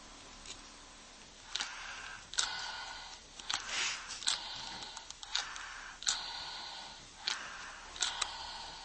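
A person breathing rapidly in and out through the mouthpiece and corrugated hose of an AIRSAFE B breathing device, about six hissing breaths starting about one and a half seconds in. Each breath opens with a sharp click.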